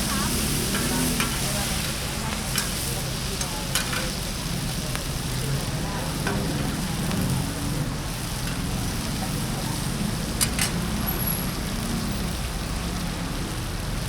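Food sizzling in a hot pan as it is stir-fried, with a few sharp clicks and scrapes of the metal spatula against the pan, one louder strike near the end.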